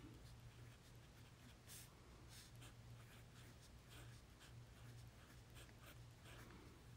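Faint scratching of a Pilot Varsity disposable fountain pen's medium stainless steel nib writing on notepad paper, in a run of short, irregular strokes.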